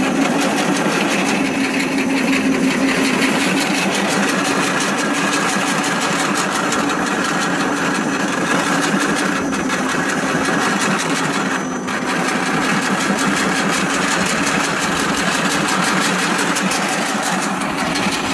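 Homemade motor-driven pellet mill running steadily while pressing pellets, a continuous mechanical running sound with a brief dip about twelve seconds in.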